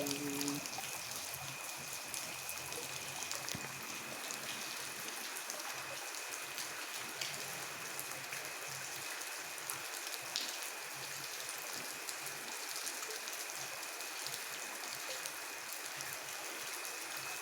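Steady rain falling, an even hiss with scattered individual drops tapping close by. A faint thin high tone runs steadily underneath.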